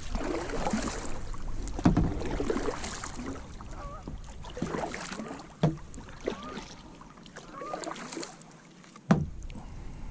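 Plastic kayak on the water: water sloshing with three sharp knocks against the hull. A low wind rumble on the microphone dies away about two-thirds of the way through.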